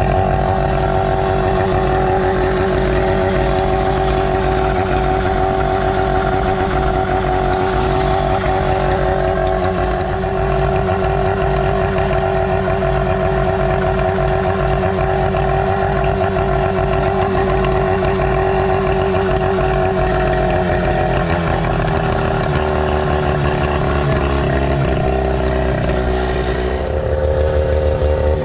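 A Hangkai 12 hp 169 cc two-stroke outboard motor running steadily on a test stand. About 21 s in, the engine slows and its pitch falls, then it speeds up again near the end.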